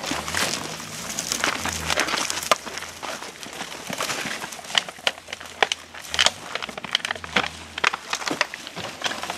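Plastic rubbish and bags rustling and crinkling as trash is gathered by hand and stuffed into bags, with many irregular sharp crackles and clicks.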